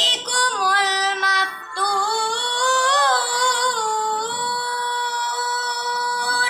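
A boy chanting Quran recitation in a melodic tilawah style, his voice rising and falling in ornamented runs. Near the end he holds one long steady note, which stops abruptly.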